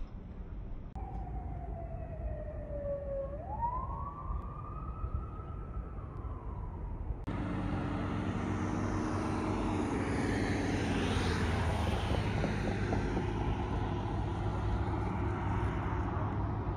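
A siren-like wail that dips in pitch, then rises sharply and slowly falls away. About seven seconds in it cuts to louder, steady street traffic noise.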